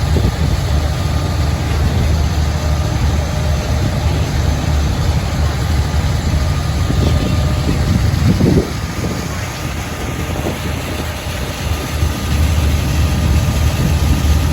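Diesel engine of a yellow-flag Chao Phraya express boat running, heard on board as a loud, steady low drone mixed with water and wind noise. The drone eases off somewhat about eight and a half seconds in and comes back up near the end.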